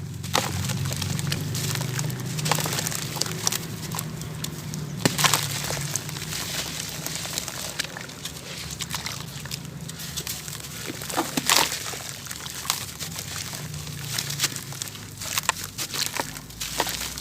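Chunks of dry sand-cement crumbling and snapping, irregular crackles with a few louder cracks, over a low steady hum.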